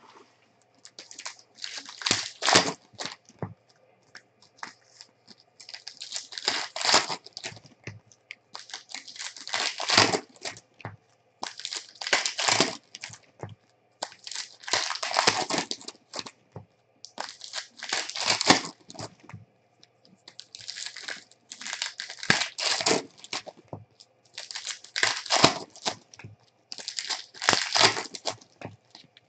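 Plastic trading-card pack wrappers from Contenders Draft basketball packs crinkling in repeated bursts every second or two as the packs are handled and one is torn open.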